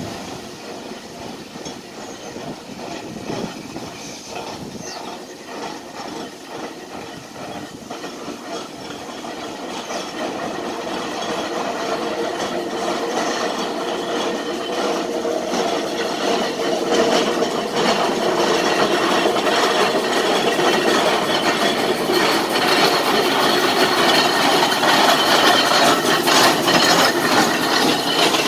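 Steam traction engine coming up the road and passing close, its rhythmic chuffing and mechanical clanking growing steadily louder as it nears.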